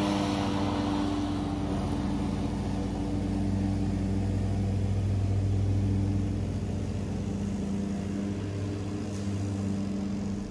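Stand-on commercial lawn mower's engine running steadily while mowing, slowly fading as the mower moves away.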